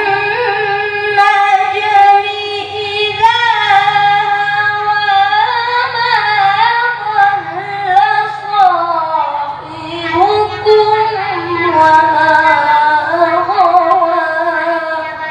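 A boy reciting the Qur'an in the melodic tilawah style, holding long ornamented notes with slow glides in pitch. The line breaks off about nine and a half seconds in and resumes a moment later.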